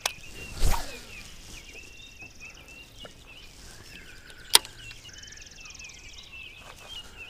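Casting with a Shimano Curado baitcasting reel on a Lew's rod: a swish of the rod a little under a second in, faint high whirring of the spool as line pays out, and one sharp click from the reel about four and a half seconds in. Birds chirp in the background.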